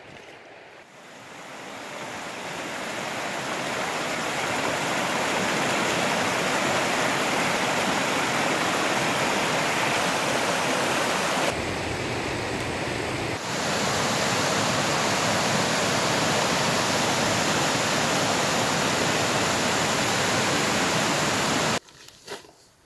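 Loud, steady rush of a fast mountain creek tumbling over rocks, swelling in over the first few seconds, briefly changing in tone around the middle, and cutting off suddenly near the end.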